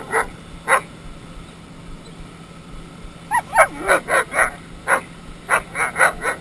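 German Shepherd police dog barking in quick bursts. Two barks come near the start, then after about two quiet seconds a rapid run of barks mixed with high, gliding whines. A steady low hum runs underneath.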